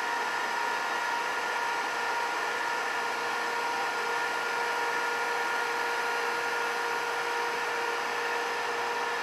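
Biodiesel processing machinery running steadily: an even whirring hiss with a steady whine over it.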